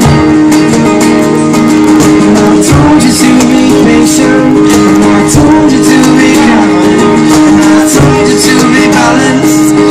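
Two acoustic guitars strummed together in a steady rhythm, with a young man's voice singing over them through a microphone.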